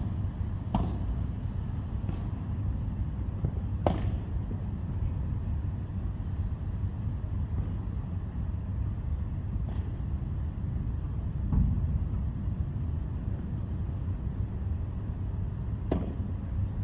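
A few sharp, isolated knocks of a padel ball off rackets or the court, several seconds apart, over a steady low rumble and a constant high-pitched whine.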